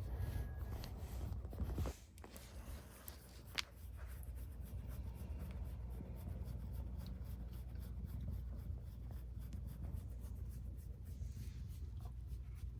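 A cat purring close to the microphone with a steady low rumble while its fur is stroked, with light scratchy rubbing of hand on fur.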